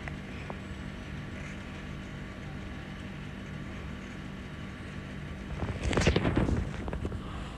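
Steady low hum throughout, with a loud burst of scratching and rustling lasting about a second, starting near six seconds in.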